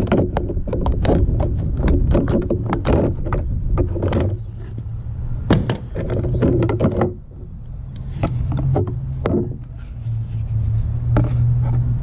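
Tin snips cutting a white plastic line-set cover channel: spells of sharp snaps and crunches as the blades bite through the plastic, with the plastic pieces clattering as they are handled. A steady low hum runs underneath, stronger in the second half.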